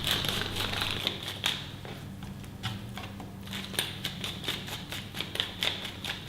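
Hand pepper mill grinding peppercorns: a gritty crunching that fades about a second and a half in, followed by irregular light clicks and taps.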